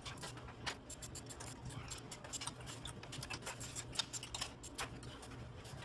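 A run of irregular light clicks and ticks over a faint steady low hum.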